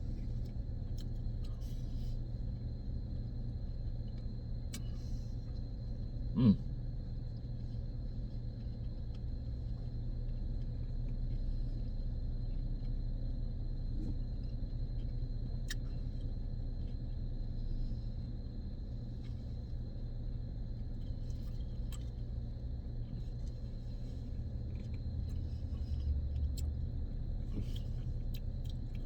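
Steady low rumble of a car idling, heard from inside the cabin, with scattered faint clicks. About six and a half seconds in, a brief loud sound falls quickly in pitch.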